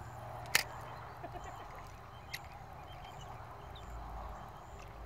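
A sharp click about half a second in and a fainter one about two seconds later, over a steady background hiss.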